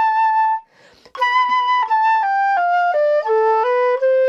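Concert flute playing an exercise phrase: a held note, a quick breath about half a second in, then a run of short notes stepping down, ending on a lower note held long near the end.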